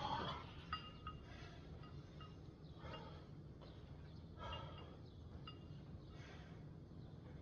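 Hard exhalations from a man doing weighted dips, one forceful breath every second or two. Short light metallic clinks come from the dip belt's chain and weight.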